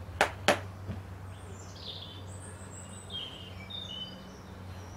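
Two sharp knocks in quick succession, then faint birdsong outdoors: a falling chirp and a few short, high whistled notes, over a steady low hum.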